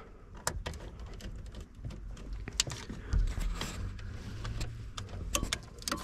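Scattered light clicks, taps and rattles of hands working plastic dash trim and a wiring harness under a pickup's steering column, with a dull bump a little after the middle and a faint low hum for a second or so after it.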